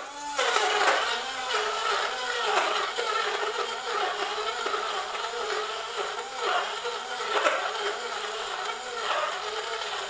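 Portable rechargeable bottle blender switching on and running, its blades churning chunks and liquid as the bottle is tipped and shaken. The motor note keeps wavering up and down.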